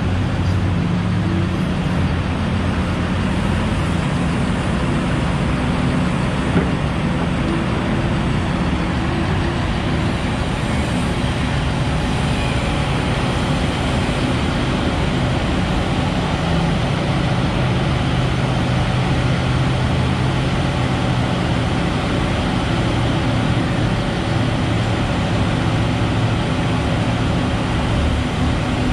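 Liebherr mining excavator's diesel engine running under load as it digs and swings, with a Komatsu 730E haul truck idling beside it: a steady engine drone whose pitch shifts as the load changes.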